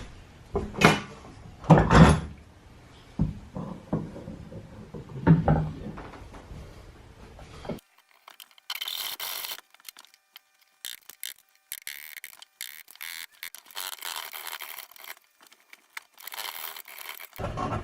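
Hand woodworking: several hard knocks and thumps on wood in the first half, then, after an abrupt cut, a run of thin, irregular scraping strokes like a plane or rasp on wood.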